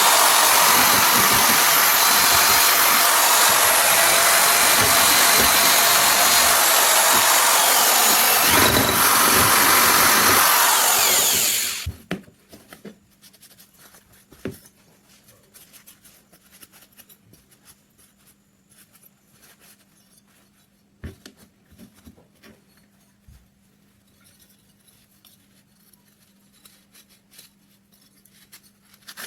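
A power tool running steadily, then switched off about twelve seconds in and quickly winding down. After that there are only a few faint clicks and a low, faint hum.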